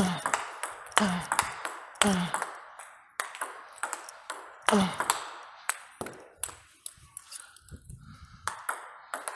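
Table tennis rally: the ball struck back and forth by rubber-faced rackets, a sharp hit about once a second with lighter bounces off the table between. About seven seconds in the rhythm breaks for a couple of seconds with only a few softer clicks.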